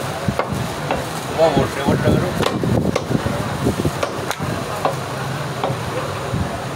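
Heavy meat cleaver chopping goat meat on a wooden stump chopping block: repeated sharp chops, unevenly spaced about a second apart.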